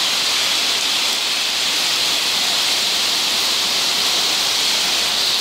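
Heavy rain pouring down steadily: a dense, even hiss with no let-up.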